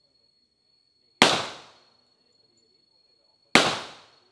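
Two gunshots about two seconds apart, each sharp crack trailing off in a short echo.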